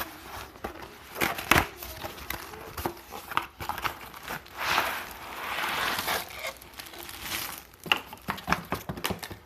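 Keyboard box being opened and its packaging handled: irregular crinkling and rustling with scattered clicks and taps.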